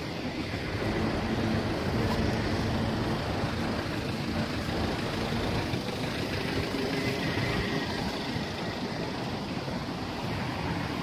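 City street traffic: vehicle engines and tyres on wet road surfaces, a steady hum with no single vehicle standing out.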